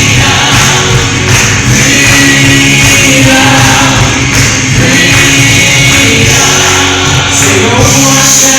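Live gospel music, loud throughout: voices singing over a band with a steady bass and drums.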